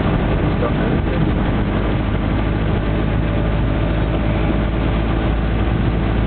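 Steady engine and road noise of a car driving along, with a constant low hum under an even rush of noise.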